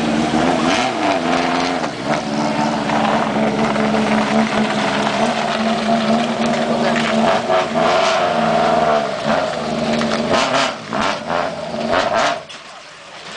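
Subaru Impreza WRC rally car engine, a turbocharged flat-four, running at a steady fast idle with a few brief blips of revs. A cluster of sharp cracks comes a little past the middle, and near the end the sound falls away to a much lower level.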